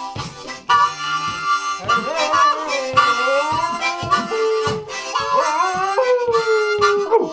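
Blues harmonica played with a rhythmic pulse, joined from about two seconds in by a dog howling along, its long howls sliding up and down in pitch and falling away near the end.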